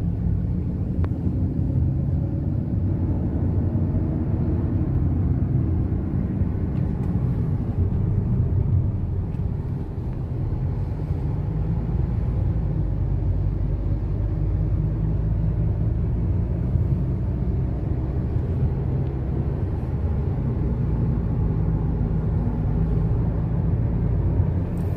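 Car engine running and tyre noise while driving, a steady low rumble with small changes in engine speed. The engine has new ignition coils and spark plugs after a misfire, and the mechanic says it is now okay.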